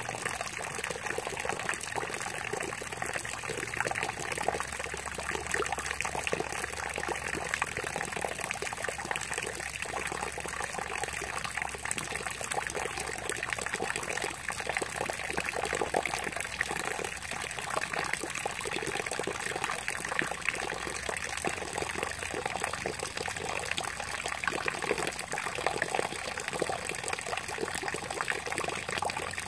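Steady rain falling, with many close raindrops ticking as they hit.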